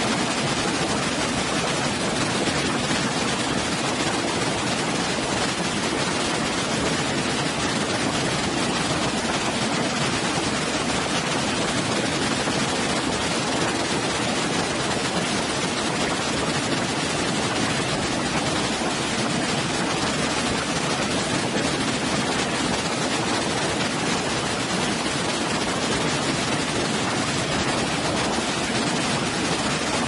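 Waterfall and water cascading over rocks, a steady even rush with no breaks or changes.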